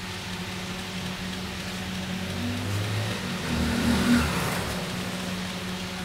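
A motor vehicle passes by, building to a peak about four seconds in and then fading, over a steady low electrical hum.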